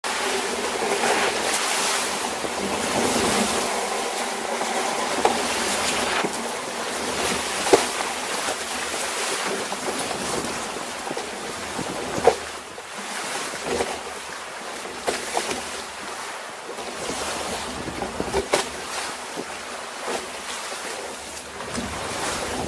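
Wind buffeting the microphone and water washing and splashing against the hull of a small sailing trimaran as it is launched and gets under way, with a few sharp knocks.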